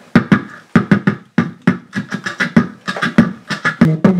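Old-school beatboxing into a handheld microphone: a steady beat of mouth-made kick-drum and snare hits. A held low humming tone comes in near the end.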